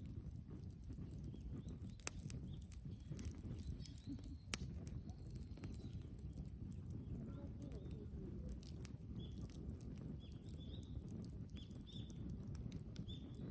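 Bonfire of piled brushwood burning, with a steady low rumble and irregular crackling. Two louder sharp pops stand out about two and four and a half seconds in.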